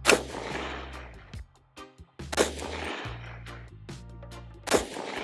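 Three rifle shots from a Geissele Super Duty 16 AR-15 in 5.56, fired one at a time a little over two seconds apart, each followed by a short fading echo.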